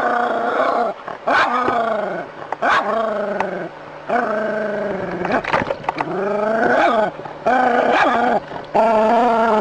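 A dog barking and howling over and over: long, drawn-out calls at roughly one a second, each bending in pitch.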